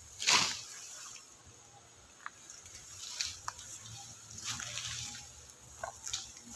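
Rustling and crunching of tall grass and cut pineapple leaves in several separate swishes, the loudest just after the start, with a few faint ticks between them.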